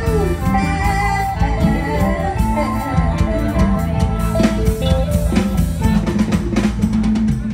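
Live Isan mor lam band music with a steady beat.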